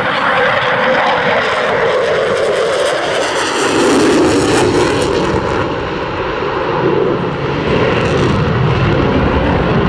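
Loud jet noise from an RAF Eurofighter Typhoon's twin EJ200 turbofans as it flies past. The pitch falls about three to four seconds in, and a deeper rumble builds afterwards.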